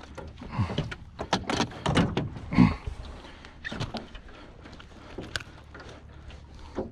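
Irregular clicks, rattles and hollow knocks as a flounder is unhooked and handled in a jon boat, with a few short low thumps against the hull; the loudest thump comes about two and a half seconds in.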